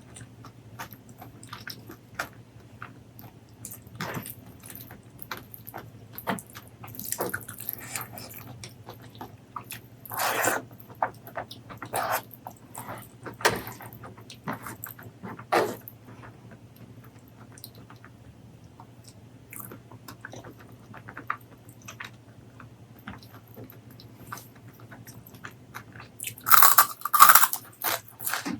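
Close-miked chewing and crunching of food, with irregular short crackles and a few louder bites, the loudest run of crunches near the end. A faint steady low hum lies underneath.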